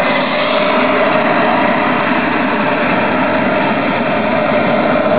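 Single-turbine engine of a radio-controlled Rafale jet model running steadily on the ground: a loud, even rush with a held tone in it.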